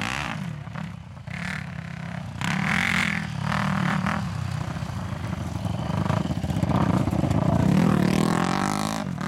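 Dirt bike engine revving, its pitch rising and falling repeatedly, growing louder toward the end.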